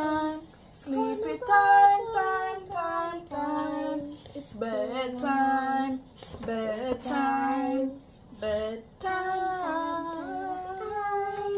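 A woman and a young child singing a slow song together, with long held notes and a short break about eight seconds in.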